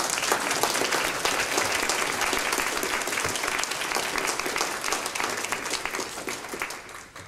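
A roomful of people applauding; the clapping thins out and dies away near the end.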